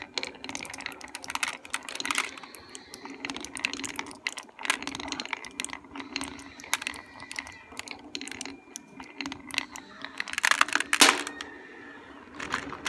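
Glass marbles rolling down a cardboard-and-wood chute with a steady low rumble, clicking irregularly against stick deflectors. They clatter into a plastic toy dump truck's bed full of other marbles. A dense burst of clacks about eleven seconds in is the loudest part.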